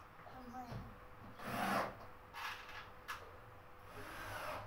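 A few irregular scraping and rubbing strokes on particle-board furniture panels, the loudest about one and a half seconds in, with a short sharp click about three seconds in.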